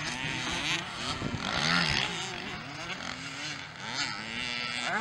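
Several small motocross bikes of the mini-moto and 65cc classes racing, their engines revving up and down over and over with the throttle, several engine notes overlapping.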